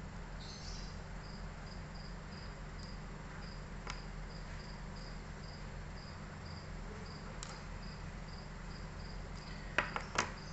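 A cricket chirping steadily in short, high, same-pitched pulses, about three a second, over a low steady hum. A few sharp clicks break in, the loudest near the end.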